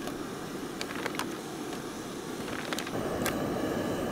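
Propane camp stove burner running, a steady low rushing sound, with a few faint ticks and taps over it.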